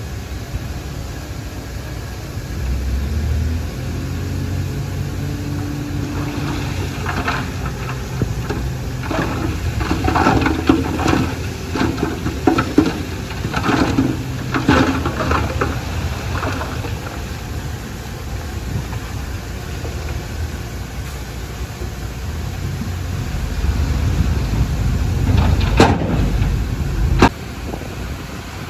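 Diesel engine of heavy earthmoving machinery running with a steady low rumble. Irregular clattering knocks come from about a third of the way in to past the middle, and two sharp knocks sound near the end.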